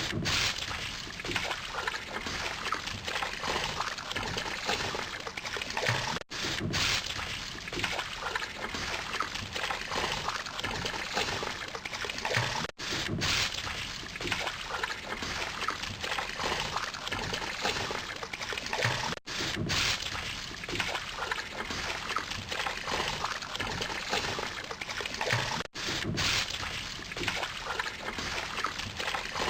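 Water splashing and sloshing from a swimmer's freestyle strokes. It runs without a break except for a brief cut-out about every six and a half seconds, where the recording loops.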